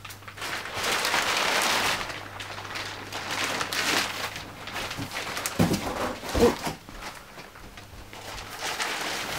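Thin plastic wrapping around a vacuum-packed foam mattress crinkling and rustling steadily as it is handled and the mattress unfolds and expands under it.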